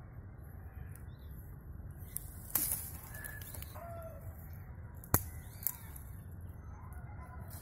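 Sharp snaps of a thin tree branch being broken and snapped in the hands: three cracks, the loudest about five seconds in. Birds call faintly a few times over a steady low rumble.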